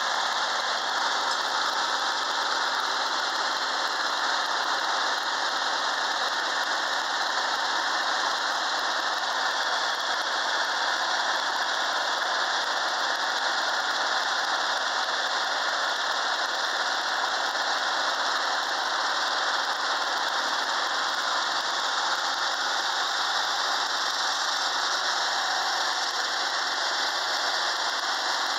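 Ford 981 tractor engine running steadily, heard up close at the open Select-O-Speed transmission, with a loud steady high hiss over the engine's low note. The low engine note shifts slightly about three-quarters of the way through.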